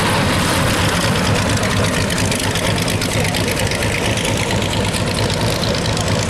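The 27-litre aero engine of a 1926 Delage Hispano-Suiza land-speed-record-style car running at low revs as the car rolls slowly past, a steady low rumble.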